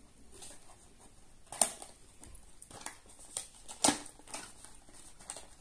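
Scissors snipping through the seal of a small cardboard product box, and the box being handled: a few sharp clicks and snaps, the loudest about a second and a half in and again near four seconds.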